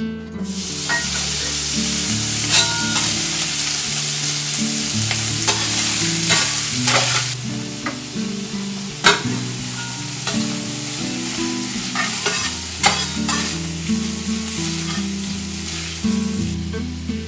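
Hash browns frying in a hot pan with a steady loud sizzle that starts suddenly, with occasional sharp clicks of a utensil against the pan. The sizzle turns a little softer about seven seconds in.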